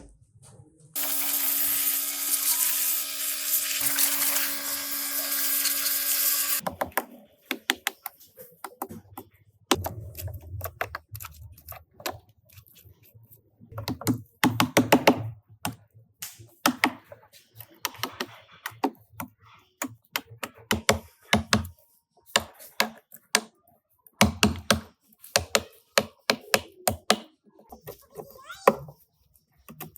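A power tool runs steadily for about six seconds and cuts off, followed by a long run of irregular clicks and knocks, like tools and workpieces being handled on a bench.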